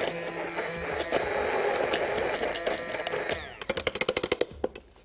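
Hand-held immersion blender running in a tall plastic beaker, puréeing fresh coriander, mint and green chillies into a thick chutney paste. About three and a half seconds in it is switched off and the motor winds down, followed by a quick run of about a dozen clicks.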